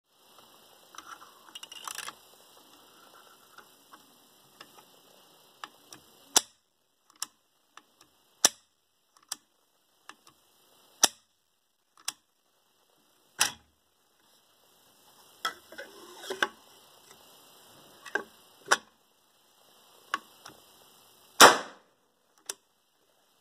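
The impact mechanism of a 3D-printed 37 mm launcher being cocked and snapped by hand, making a series of sharp metallic clicks, unevenly spaced, the loudest near the end. Soft handling rustle comes between some of the clicks.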